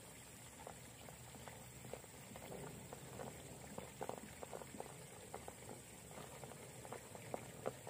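Faint, irregular clicks and knocks of an RC rock crawler's tyres and chassis working slowly over rock, with a couple of sharper taps near the end.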